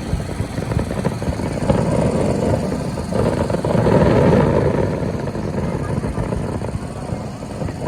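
Fireworks display: rapid bangs and crackling merging into a continuous rumble, swelling louder about two seconds in and easing after about five seconds.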